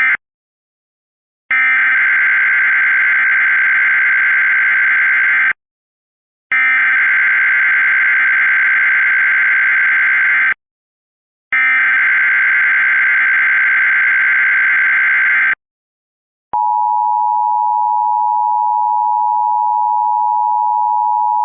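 Emergency Alert System tones opening a new alert. First come three bursts of SAME header data, each about four seconds long with about a second's gap between them. About sixteen seconds in, the EAS two-tone attention signal (853 and 960 Hz together) starts and holds steady.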